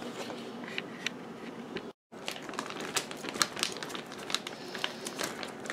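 Plastic bag of frozen chicken breasts crinkling and crackling as it is handled, with a few light knocks before it; the sound drops out completely for a moment about two seconds in.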